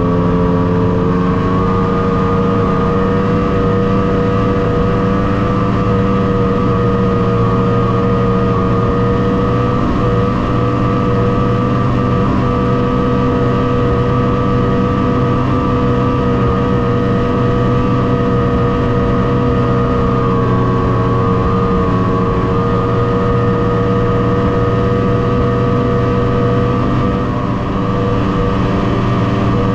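Snowmobile engine running steadily at travelling speed as the machine rides across snow. Its note sags slightly about two-thirds of the way through and eases briefly near the end.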